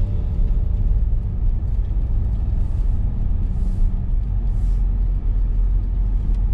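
Steady low rumble of a car driving, heard from inside the cabin, with three faint brief hisses in the middle.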